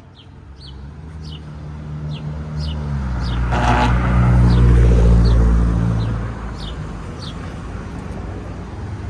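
A motor vehicle driving past close by: its engine grows louder to a peak about halfway through, then fades away.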